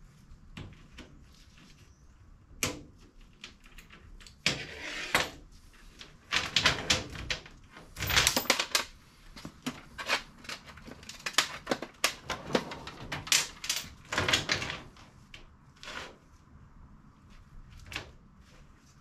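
Metal clicking and clattering as a steel roller chain and hand tools are handled on a steel tool chest. The rattles come in quick clusters, starting a few seconds in, loudest around the middle, and thinning to a few single clicks near the end.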